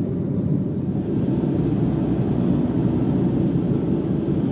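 Steady low rumble of road and engine noise inside a moving car at highway speed.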